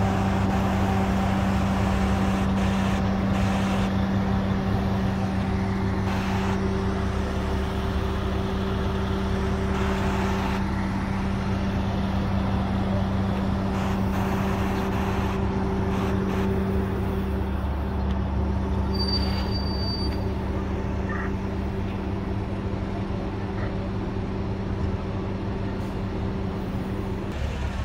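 Heavy diesel fire truck engine idling with a steady, even low hum. A short high beep sounds partway through.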